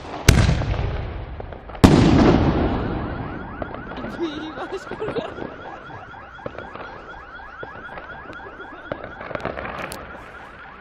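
Two loud fireworks explosions about a second and a half apart, each rumbling and echoing away; then a car alarm sounds with a fast repeating chirp, and a few sharp firework cracks go off near the end.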